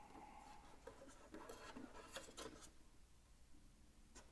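Near silence with faint scattered scratchy rustles and light ticks, from handling statue parts and packing material.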